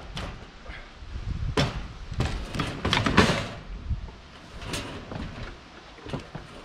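Irregular knocks and scraping handling noises, thickest and loudest around the middle, with one more sharp knock a little later.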